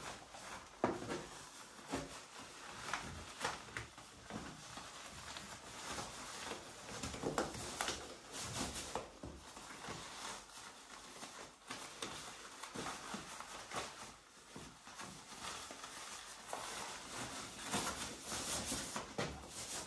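Plastic rain clothes rustling and crinkling as they are pulled on and adjusted, with irregular small knocks and scrapes.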